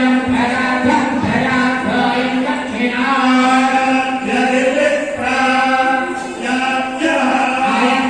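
A group of women's voices chanting a devotional hymn in unison, the notes drawn out and held, with a steady low note sounding beneath.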